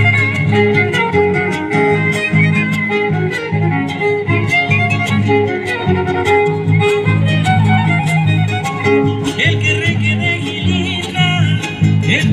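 Son huasteco instrumental passage: a violin playing a lively melody over steadily strummed guitars.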